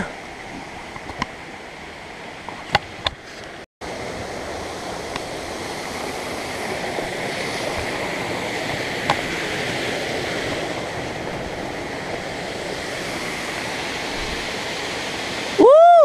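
Steady rush of creek water tumbling over rocks and small cascades below a waterfall. It cuts out briefly about four seconds in and comes back louder. A few faint clicks sound in the first few seconds.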